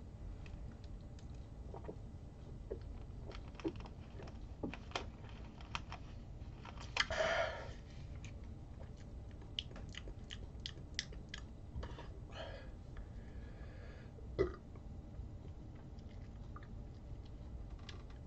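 Mouth sounds of someone drinking and tasting a soda from a plastic bottle: scattered small lip smacks and tongue clicks, with a louder breathy sound about seven seconds in and a fainter one near twelve seconds. A single sharp knock comes about fourteen seconds in.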